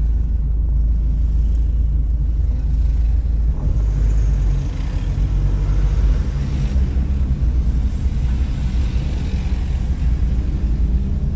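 Steady low rumble of a car's engine and road noise, heard from inside the cabin as the car moves slowly in heavy traffic.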